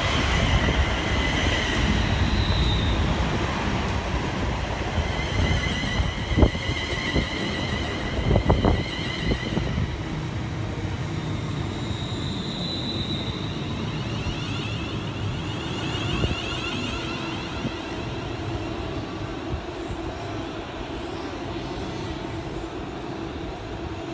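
London Northwestern Railway Class 350 Desiro electric multiple unit running past alongside the platform. Its wheels rumble, with a couple of sharp clunks over the rails and high whining tones that come and go. The sound fades gradually as the train draws away.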